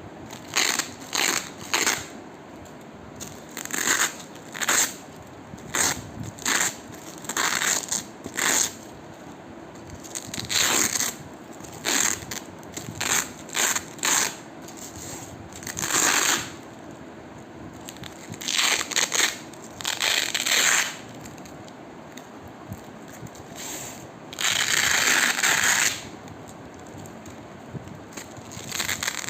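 Hook-and-loop (Velcro) fastener being pulled apart again and again in short, crunchy rips with pauses between them, and one longer rip near the end.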